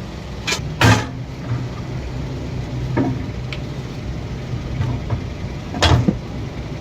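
Knocks and clanks of tire changer parts being fitted during reassembly. The loudest comes about a second in, a lighter one around three seconds, and another strong one near the end, over a steady low hum.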